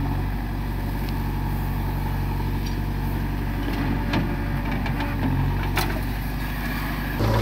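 Diesel engines of a JCB 3DX backhoe loader and a New Holland tractor running together in a steady hum, the backhoe's note shifting a little as it swings its loaded bucket. A few sharp knocks come through, from the bucket and soil as it loads the tractor's trolley.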